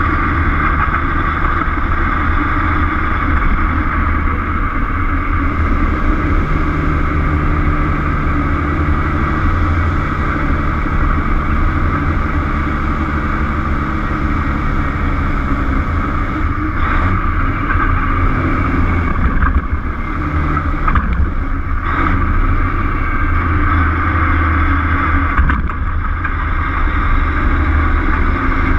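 Peterbilt truck's diesel engine running steadily as it drives, with road noise; the engine's note shifts a few times, and a few brief knocks come through in the second half.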